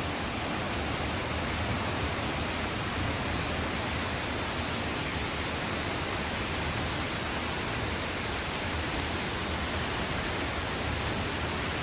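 The Río Claro rushing over the Siete Tazas falls and pools in full flow after heavy rain, a steady, even rush of water.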